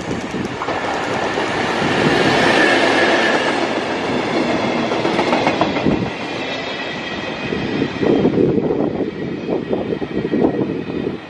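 An EF65 electric locomotive hauling flat wagons loaded with rails passes through at speed. Its running noise swells to a peak with a high steady whine about two to three seconds in. The wagons' wheels then clickety-clack over the rail joints and fade away.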